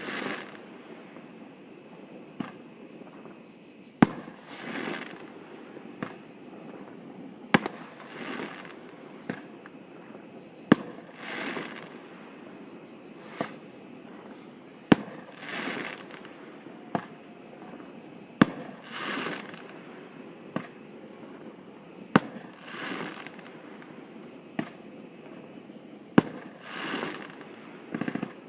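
Fireworks going off across a lake: about eight sharp bangs, roughly one every three to four seconds, each followed under a second later by a softer trailing rumble.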